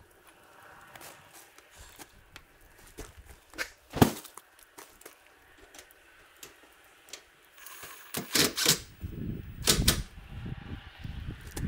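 Scattered light clicks and taps of small hardware and tools being handled at a tool pouch and against metal siding trim, with one sharp click about four seconds in and a cluster of louder knocks around eight to ten seconds in.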